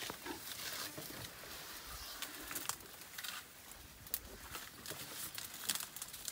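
African elephants feeding in dense bush: leaves rustling and twigs crackling and snapping in many quick, irregular cracks as an adult and a calf pull at the branches.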